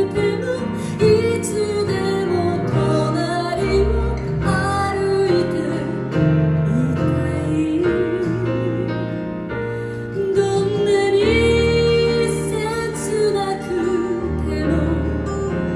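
A woman singing live into a handheld microphone with acoustic band accompaniment; her held notes waver with vibrato.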